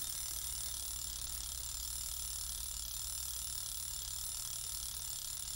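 Fast, even mechanical ticking or ratcheting that holds steady throughout, over a low steady hum.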